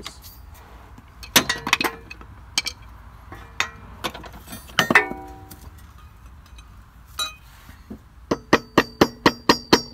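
Hammer tapping a BMW X5 front drive shaft along its splines into place: a few scattered metallic clinks and knocks, one with a ringing note about five seconds in, then from about eight seconds in a steady run of taps, three to four a second, each leaving the metal ringing.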